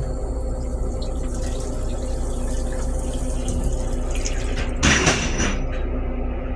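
Stainless steel toilet on an M3 railcar flushing: green flush liquid runs into the bowl with a steady watery hiss, then a louder rush about five seconds in as the bowl drains clean.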